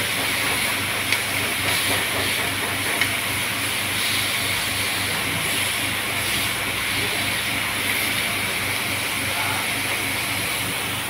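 Beef ribs sizzling steadily in a hot grill pan, with two short clicks, about one and three seconds in, as metal tongs turn the meat.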